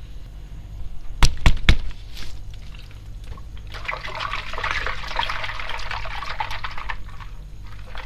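Three sharp knocks about a second in, then water pouring and splashing for about three seconds.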